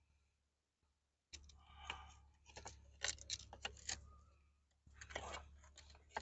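Bricks knocking and clicking against each other as they are handled and set in place for a brick stove: a run of sharp clicks and knocks starting about a second in.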